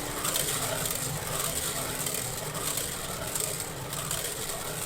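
Steady mechanical whir of a paint-pouring spinner turning a freshly poured canvas, with a faint hum that fades about two seconds in.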